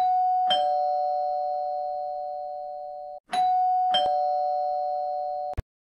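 Two-note "ding-dong" chime, a higher note followed by a lower one about half a second later, played twice. Each note rings on and fades slowly, and the second pair cuts off abruptly near the end.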